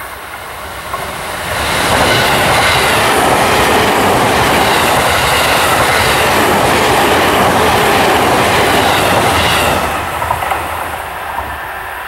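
JR East E257 series electric express train passing close by: the rumble of its wheels on the rails builds over about a second, holds loud for about eight seconds while the cars go by, then falls off quickly as the train moves away.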